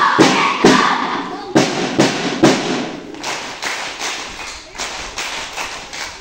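A group of children striking a rhythm with their hands in unison, with group voices under the first hits. A few loud hits about half a second apart give way to a quicker, lighter run of about three a second.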